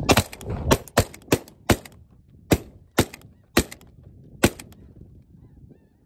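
A rapid volley of about nine shotgun blasts from several hunters firing at a passing flock of snow geese, spread over the first four and a half seconds, with the geese calling faintly overhead.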